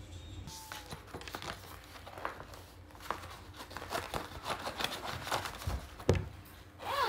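Crinkling and rustling, as of something being handled, with many scattered light clicks and taps starting about half a second in.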